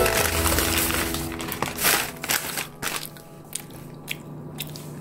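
Plastic carrier bag and paper takeout bag rustling and crinkling as hands dig through them, in uneven crackles.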